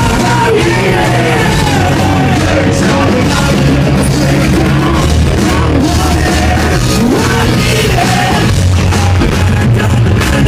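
Live hard rock band playing loudly, with distorted guitars, bass and drums and a lead vocal singing and yelling over them.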